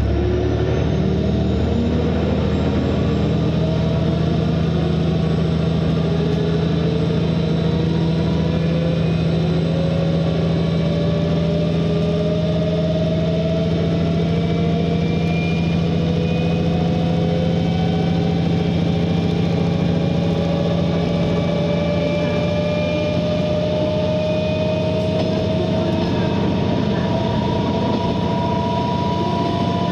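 Komatsu six-cylinder diesel engine of a KiHa 120 railcar pulling the train under acceleration: a steady drone with whining tones that climb slowly in pitch as the railcar gathers speed.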